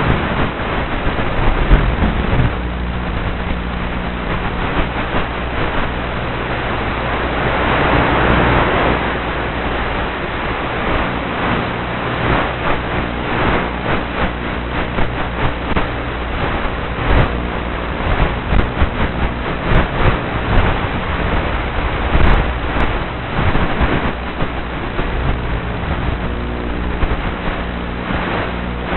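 Small RC Cessna model's motor and propeller running at a steady hum, heard through the tiny onboard camera's microphone under heavy rushing wind noise. The rush swells about eight seconds in, and short crackles break through often in the second half.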